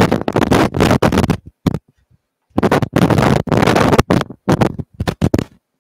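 Glass jar of homemade Caesar dressing being shaken out over a salad: loud, irregular bursts of noise that stop suddenly near the end.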